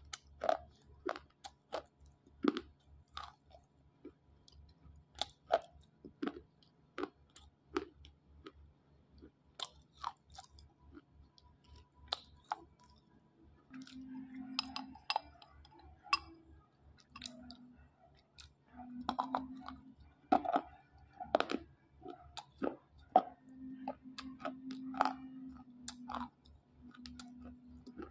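Dry slate pencils being bitten and chewed, with sharp, irregular crunches about two a second.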